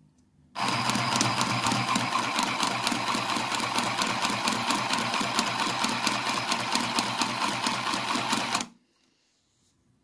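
Singer handheld sewing machine stitching at a fast, steady rate through a thin stretchy cloth, starting about half a second in and stopping abruptly after some eight seconds.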